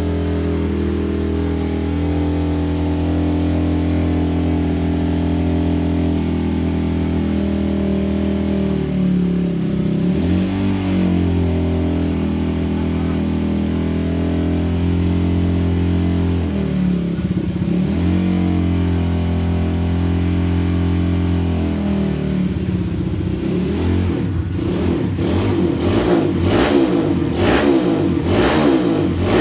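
Suzuki Satria FU motorcycle engine idling steadily, blipped briefly twice, then revved in quick repeated throttle blips, about one and a half a second, through the last several seconds.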